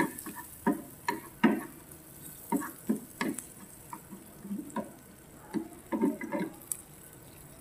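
A spatula knocking and scraping irregularly against a nonstick frying pan, about a dozen short strokes, while stirring onion chunks sautéing in butter over a faint sizzle.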